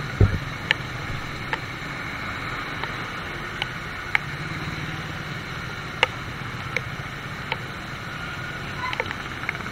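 Heavy rain and wet traffic: a steady hiss of rain and tyres on a flooded road with a low engine hum, scattered sharp ticks of raindrops striking the helmet camera, and one low thump just after the start.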